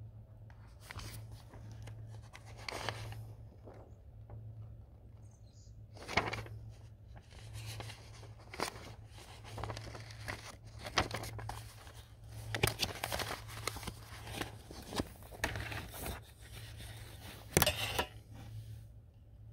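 Irregular rustling, scraping and soft knocks of cloth rubbing against a covered, jostled camera microphone, over a steady low hum.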